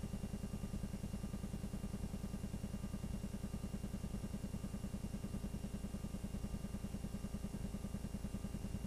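Film projector running, its mechanism clattering in a fast, even rhythm with a steady hum underneath.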